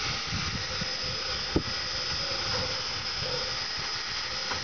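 Steady hiss of steam from the standing Nickel Plate Road 765, a 1944 Lima 2-8-4 steam locomotive, with a faint high steady whine over it. A single sharp click comes about one and a half seconds in.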